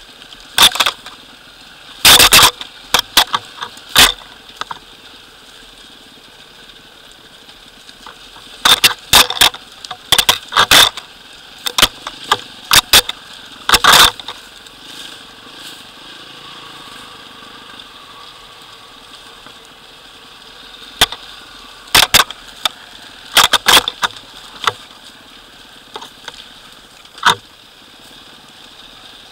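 Enduro dirt bike ridden over a rocky, overgrown trail: the engine runs steadily and low underneath, while sharp knocks and clatters from rocks, brush and the bike's chassis come in clusters, loudest around two to four seconds, ten to fourteen seconds and twenty-two to twenty-four seconds in.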